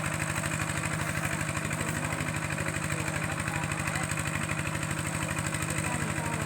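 A small engine running steadily at idle, with an even rapid beat.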